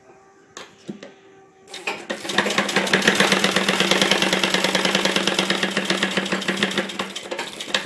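Sewing machine stitching lace onto the edge of a saree: a couple of light clicks, then from about two seconds in a fast, even clatter of needle strokes over a steady hum, easing off near the end.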